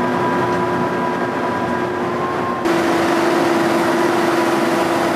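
Steady running noise inside a moving vehicle, with a constant mechanical hum. The sound shifts abruptly to a slightly louder, rougher texture about two and a half seconds in.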